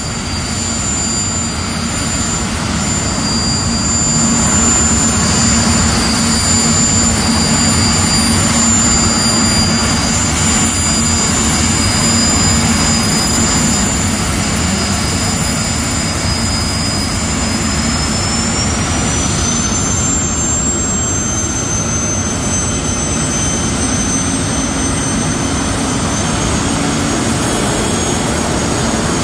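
Jet dragster turbine engines running at the starting line: a steady loud rumble with high whistling whines. One of the whines rises in pitch about two-thirds of the way through.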